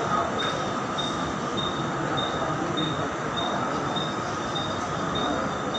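Steady noise of a railway platform beside a standing passenger train, with a short high-pitched beep repeating rapidly and evenly.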